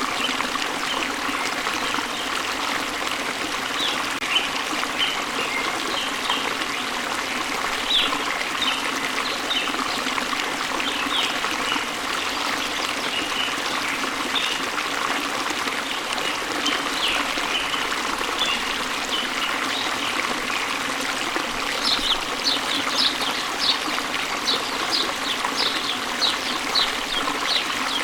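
Water of a small waterfall splashing and flowing steadily, with birds chirping over it: scattered short calls throughout and a quicker run of repeated chirps in the last few seconds.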